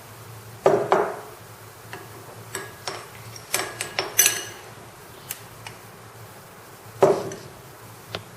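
Kitchen utensils and dishes knocking and clinking as dry ingredients are spooned into a sieve over a bowl. There are two louder knocks, about a second in and near the end, and a run of lighter clicks in the middle.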